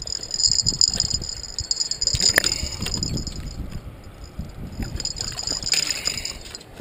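Water splashing at the edge of riprap rocks while a hooked blue catfish is landed by hand, with scuffs and knocks on the rocks and one sharp knock about two and a half seconds in, over a steady high hiss.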